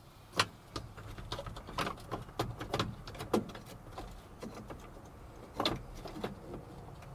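Hard plastic clicking and tapping as a replacement instrument-cluster lens is handled and pressed into the cluster bezel: irregular sharp clicks, several a second, with a few louder snaps.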